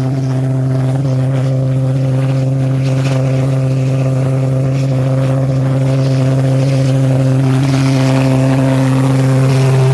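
Gluhareff pressure jet engine running: a loud, steady, deep drone with a strong low hum and a ladder of overtones over a rushing hiss, getting a little louder in the second half.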